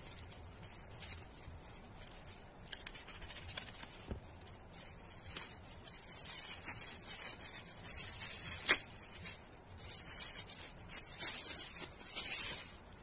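Plastic packaging crinkling and rustling as a courier mailer is cut with scissors and the small plastic bag inside is torn open, in uneven crackly bursts starting a few seconds in. There is one sharp click about two thirds of the way through.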